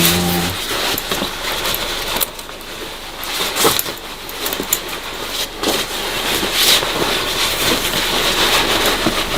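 Rustling and handling noise with scattered irregular clicks and knocks, close to the microphone.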